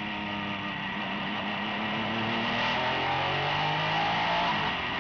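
Porsche 962C's twin-turbo flat-six heard from inside the cockpit under way on track. The engine note climbs steadily and drops sharply near the end.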